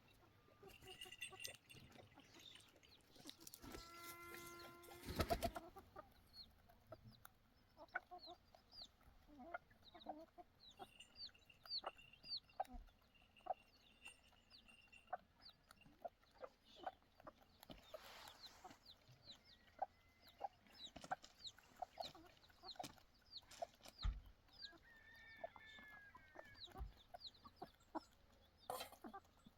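Chickens clucking faintly, with many short, high chirps throughout and one louder pitched call about four seconds in.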